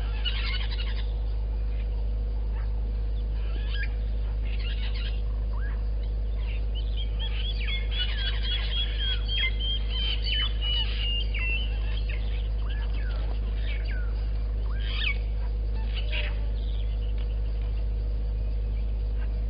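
Wild birds calling in the bush: scattered chirps and short whistled calls, with a quick run of repeated chirps in the middle. A steady low hum lies under them.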